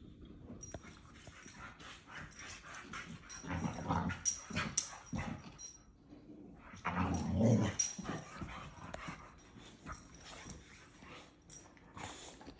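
Boxer dog making play noises in two bouts, about three and a half seconds in and again about seven seconds in, the second the louder.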